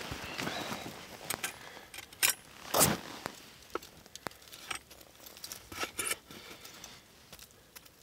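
Knife cutting a steak on a wooden board, with irregular sharp taps and clicks of the blade against the board, a few louder ones about two, three and six seconds in, over soft rustling of a winter jacket.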